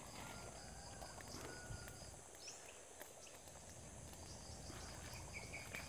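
Faint outdoor background: an insect chirping in an even series of short high pulses, about four a second, that pauses midway and resumes, over a low rumble.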